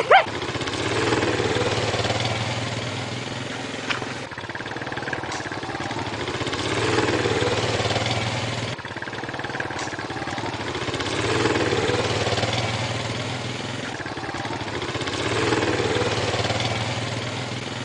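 A steady engine drone that swells and eases off about every four to five seconds, dipping briefly about four and nine seconds in.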